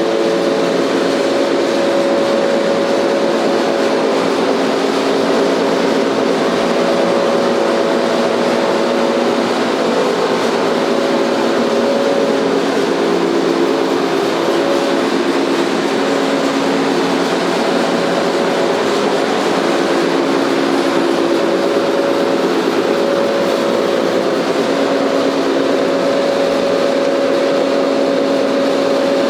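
Staiger H15-30 horizontal grinder running steadily on its 30 hp electric motor, a steady hum with a little bit of a rattle from the safety door over the drive shaft.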